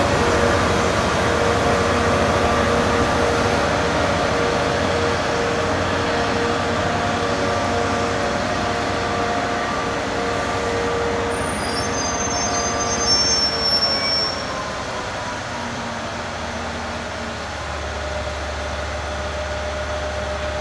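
Speno RR16-M14 rail grinding train running with a steady mechanical hum and drone. A brief high squeal comes a little past the middle, after which the sound eases slightly.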